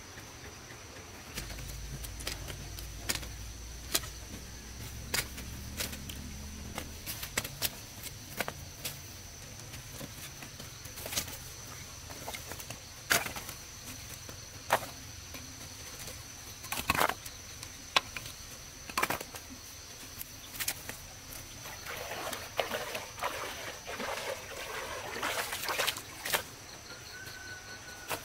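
Wooden offcuts knocking together as they are picked up and dropped into a woven bamboo basket: sharp irregular clacks. A steady high insect drone runs behind.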